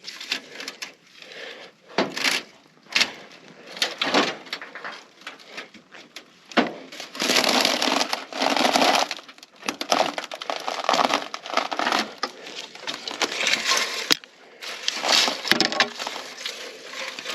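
Dry debris crunching and cracking under a person crawling over it, in irregular bursts with sharp snaps, heaviest around the middle and again near the end.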